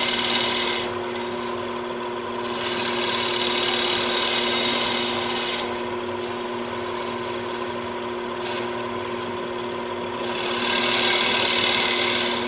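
Carbide cutter on a captured boring bar taking a light cleanup cut across the inside bottom of a wooden vessel on a running lathe. It makes a little hissing sound that swells and fades three times over the lathe's steady hum. The soft hiss is the sign of the cutter set right on the center line and cutting cleanly.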